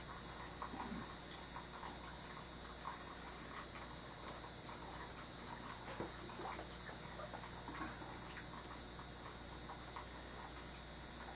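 Faint, irregular light taps and scratches of a paintbrush dabbing oil paint onto a painting panel, over a steady low electrical hum.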